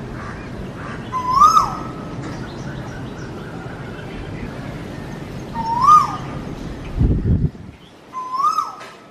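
Asian koel (koyal) calling three times, a few seconds apart: each call a clear whistled note that rises, holds briefly and drops away. Steady low background noise underneath, with a brief low rumble about seven seconds in, after which the background is quieter.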